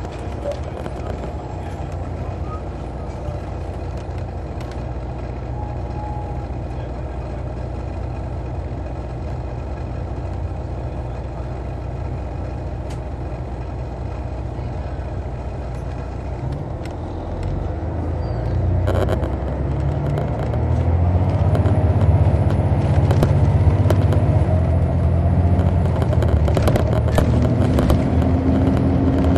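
Detroit Diesel Series 60 inline-six of an MCI D4000 coach, heard from the rear seats: running steadily, then about two-thirds of the way through, after a brief clunk, it grows louder and climbs as the bus accelerates.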